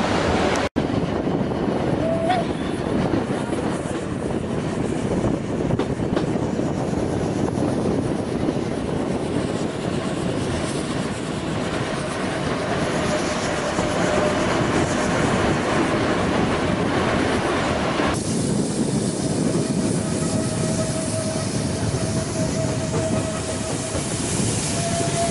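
Metre-gauge steam-hauled train heard from an open carriage window: the steady rumble and clatter of the carriages' wheels on the track, with a thin, steady wheel squeal on curves in the second half.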